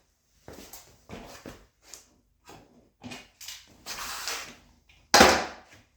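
Irregular handling noises of parts and the motorcycle seat being moved and worked on: short rustles, scrapes and clunks, with one louder sudden knock about five seconds in.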